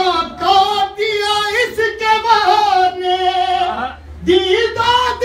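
A man singing an Urdu manqabat (Shia devotional poem) solo and unaccompanied into a microphone, holding long, wavering notes, with a short break about four seconds in before he goes on.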